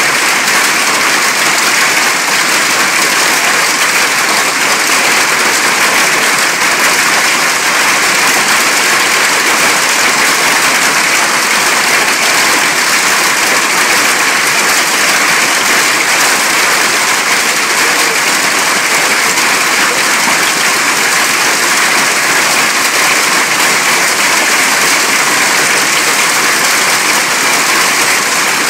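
Hail falling densely and steadily on the patio roof overhead and on the lawn, a loud, unbroken hiss that holds level throughout.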